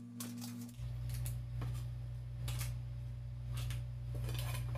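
Soft scattered taps and clicks of corn pieces and vegetables being set down on a paper-lined tray, over a low steady hum that comes in about a second in.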